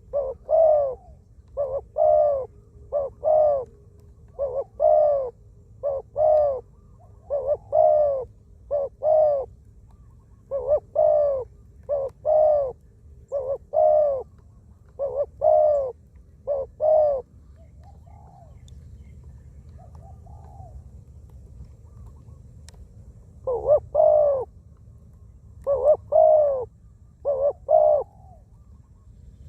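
Spotted dove cooing: a run of short, loud coo notes in twos and threes, a pause of several seconds about seventeen seconds in with only faint calls, then more cooing near the end.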